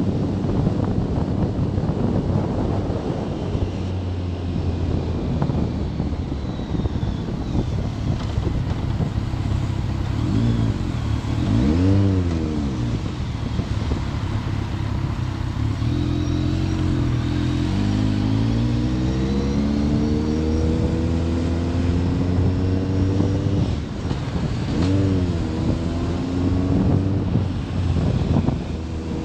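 BMW K1300S motorcycle's inline-four engine slowing for a junction, with a quick rev up and down about twelve seconds in. It then pulls away and climbs through the gears, the pitch rising and dropping at each shift. Wind noise on the microphone covers the first few seconds.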